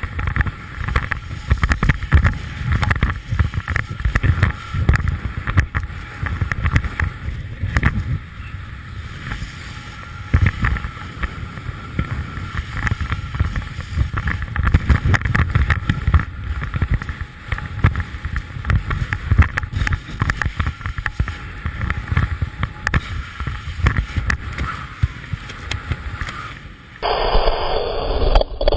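Wind rushing and buffeting over a camera microphone during a parachute descent, a steady gusty rumble strongest in the low end. About 27 seconds in it changes abruptly to a duller, narrower rush of air.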